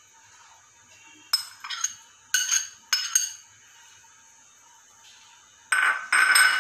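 Metal spoon clinking against glass bowls as diced mango is spooned out: a few sharp, ringing clinks between about one and a half and three seconds in, then a louder, longer clatter of spoon on glass near the end.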